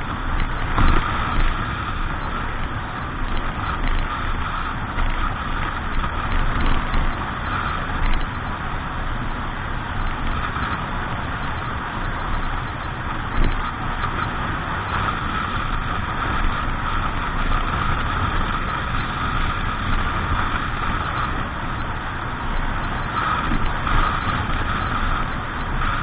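A boat's motor running steadily, a constant low rumble with an even, unchanging drone.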